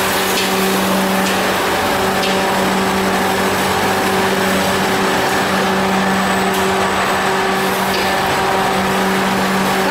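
Caramel popcorn coating kettle running: its electric motor gives a steady hum with a low tone, over a rustling hiss as the batch of coated popcorn tips out of the tilted kettle onto the tray.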